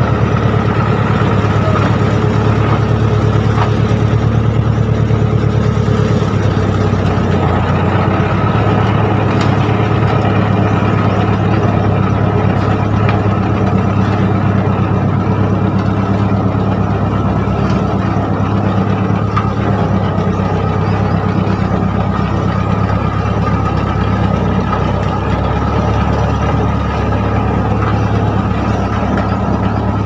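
Heavy diesel engine running steadily at close range, an even low engine note that holds without change.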